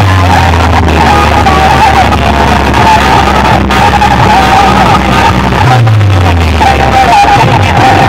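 Competition DJ remix music playing very loudly from a huge stack of sound boxes and horn speakers: a deep, steady bass tone that slides lower about two-thirds of the way through, under a wavering high melody line.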